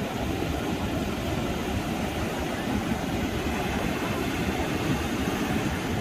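Ocean surf breaking offshore and washing up onto a sandy beach: a steady, even rush of noise.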